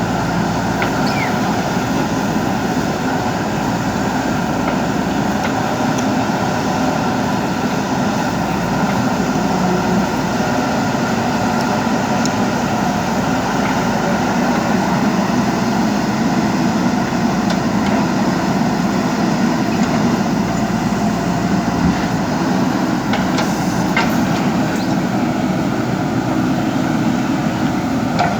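JCB 3DX backhoe loader's diesel engine running steadily while it works, a continuous even drone with a few faint clicks near the end.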